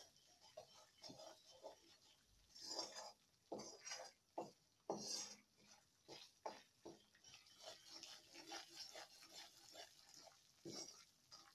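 Metal spoon stirring and scraping flour roasting in ghee around a metal kadhai, in faint, irregular scrapes and knocks against the pan, the loudest a few seconds in.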